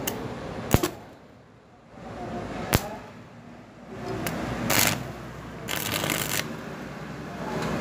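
Stick-welding arc on cast iron, struck in short bursts: sharp cracks as the arc strikes, then brief spells of crackling hiss, with pauses between.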